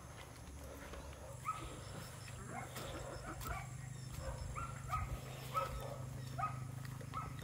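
A dog barking repeatedly, short barks about once a second, over a steady low hum that starts about a second in.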